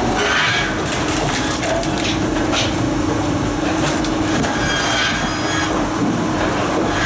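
Firewood processor running with a steady mechanical hum, with several short cracks of wood being cut and split.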